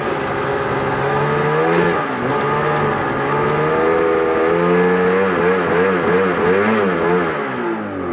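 Snowmobile engine revving under load as the sled is throttled up a loading ramp onto a sled deck, the revs rising and falling over and over as the rider works the throttle. Near the end the revs drop back toward idle.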